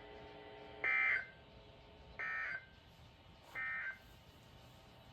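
Three short bursts of NOAA Weather Radio SAME digital data tones, each under half a second and about 1.4 seconds apart, the first the loudest. Their shortness fits the end-of-message code that closes the required weekly test. A faint steady hum stops just before the first burst.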